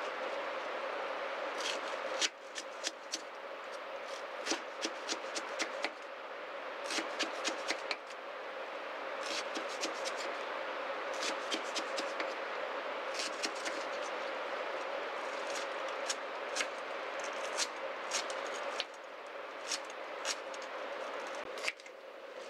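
Small folding knife peeling and cutting a garlic clove on a wooden board, giving irregular clusters of light clicks and taps as the blade meets the wood, over a steady hiss.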